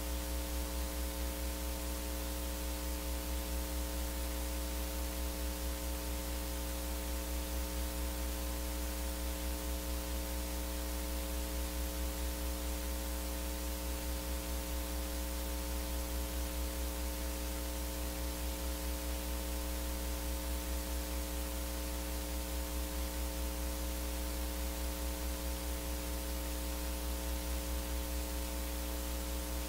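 Steady electrical hum and hiss, a low mains-type hum with a few fixed higher tones over an even hiss, unchanging throughout.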